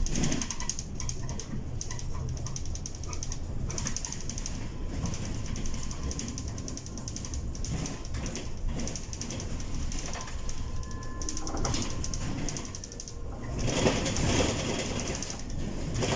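Cabin noise inside a Bolloré Bluebus 12-metre battery-electric bus on the move: steady low road rumble with a fast, even rattle of the interior fittings. The noise swells louder about three-quarters of the way through.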